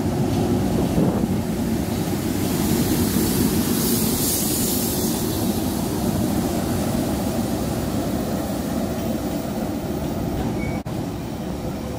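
Two Class 90 electric locomotives passing slowly at the head of a container freight train, a steady rumble with a hiss that swells about three to five seconds in as the locomotives go by, then the container wagons rolling past. The sound cuts out for a moment near the end.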